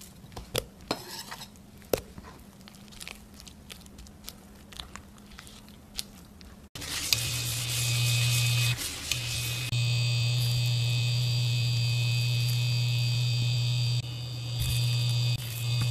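Light clicks and taps of banana slices and a spatula in a glass bowl of batter. Then, from an abrupt change about seven seconds in, a loud steady electrical hum and buzz of an induction cooktop heating a pan, which drops out for about a second and later dips again.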